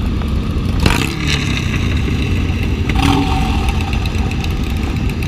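Motor vehicle engine running steadily, with a sharp knock about a second in.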